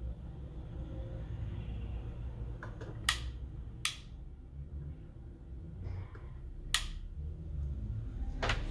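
A few sharp clicks over a low steady hum, three or four in all a second or more apart, from handling the connector and tools while soldering the centre pin of a PL-259 connector onto coax.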